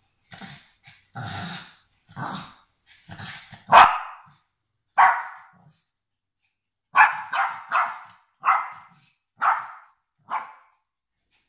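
Small dogs barking in short, sharp yaps mixed with growling while play-fighting with each other. The loudest bark comes about four seconds in, followed by a quick run of barks in the second half.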